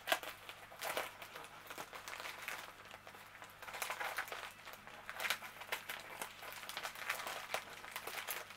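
Padded plastic bubble mailer crinkling and rustling in irregular bursts as hands handle it and pick at its packing tape.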